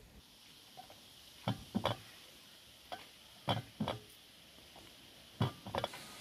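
Ladle knocking against a steel pot and a plastic funnel as blackberry compote is ladled into glass jars: sharp knocks, mostly in close pairs, over a faint steady hiss.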